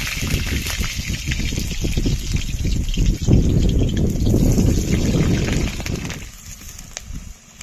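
Potato chunks frying in hot oil in a metal kadai: a loud, steady sizzle with crackling spatters as pieces drop into the oil. It swells from about three seconds in and fades after about six seconds.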